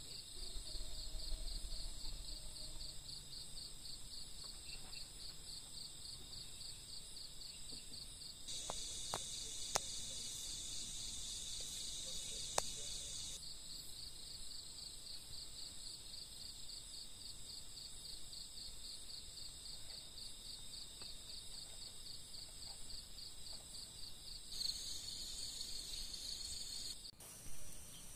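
Forest insect chorus: a steady, high, rapidly pulsing trill with a second high hum above it. A louder buzzing insect joins for about five seconds in the middle and again briefly near the end, with two faint clicks.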